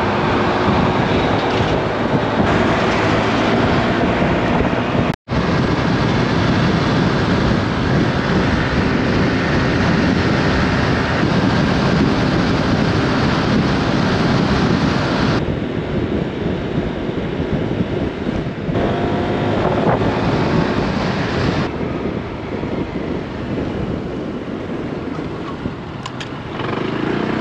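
Riding noise from a Honda Click 160 scooter: wind buffeting the microphone over the hum of the single-cylinder engine, its pitch drifting slightly. The sound drops out completely for an instant about five seconds in.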